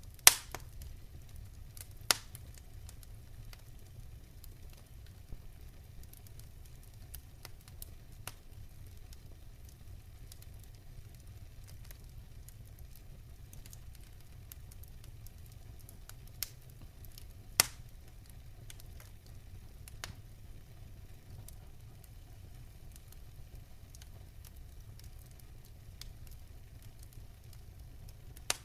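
Steady low rumble with occasional sharp pops and crackles, a few seconds apart and irregular, the loudest right at the start.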